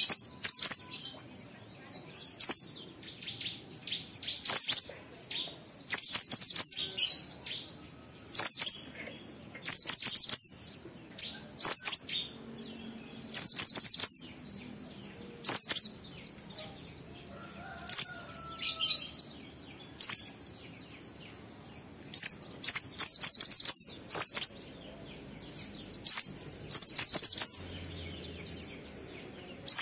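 White-eye (pleci) singing in the 'ngalas' style: short, fast phrases of high-pitched chirping notes, repeated every one to two seconds.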